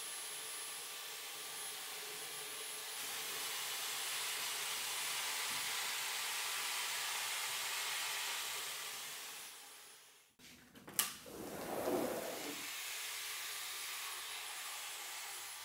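Dyson cordless stick vacuum running steadily with a crevice tool, sucking dried dust out of a window track. About ten seconds in the sound drops out briefly, then comes a sharp click and a short louder rustle before the steady running resumes.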